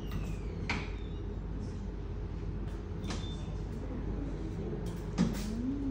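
Steady low rumble of a furnace, with a few light knocks and clinks of metal tools. A short rising tone comes near the end.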